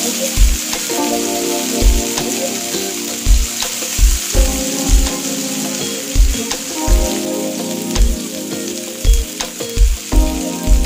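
Marinated paneer tikka skewers sizzling in oil on a grill pan as they roast, a steady high hiss. Background music with held notes and a regular deep beat plays over it.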